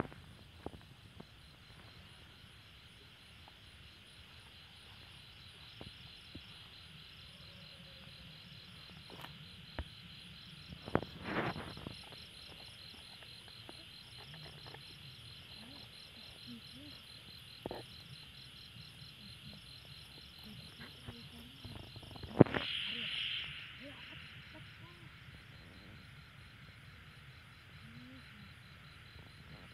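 Night insect chorus: a steady high chirring of crickets with a rapid, even pulsing note. A few sharp knocks and rustles cut across it, the loudest about three-quarters of the way through.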